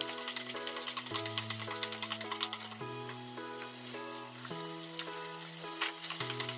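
Scrambled egg sizzling in a frying pan while a wooden spatula stirs and scrapes it, over background music of held notes.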